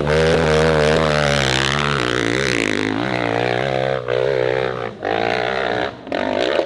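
Dirt bike engine revving hard under load on a steep climb, its pitch wavering up and down as the rear wheel spins and grips, with short breaks in the throttle about every second near the end.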